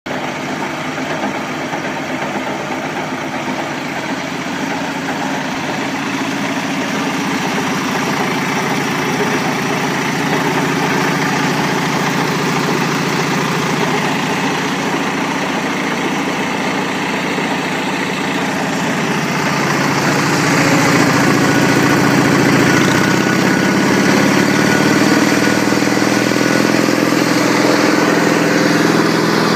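Bolens HT 20 garden tractor's engine running steadily at idle, getting louder about two-thirds of the way through.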